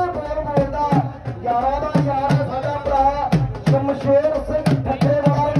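Music: a wavering melody over a steady drum beat, with deep bass drum hits that each drop in pitch.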